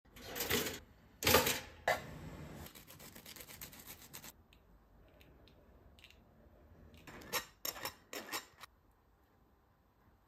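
Handling noises of hands making toast sandwiches on plates: a few short bursts of rustling and clicking, with a stretch of hiss and small clicks in the first few seconds.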